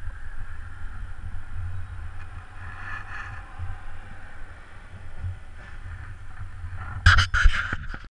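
Wind rumbling on the camera microphone over a steady outdoor traffic hiss that swells about three seconds in, then a few loud sharp knocks near the end.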